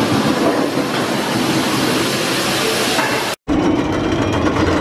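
Roller coaster train rolling along its track close by, a loud steady roar of wheels on the steel rail of a hybrid coaster on a wooden structure. The sound drops out briefly about three and a half seconds in, then steady coaster noise carries on.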